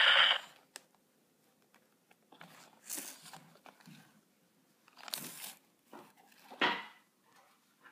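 The singing plush hound dog's song stops about half a second in. After that come scattered scratching and rustling noises of a hand handling the toy in its cardboard box, in several short bursts, the loudest near the end.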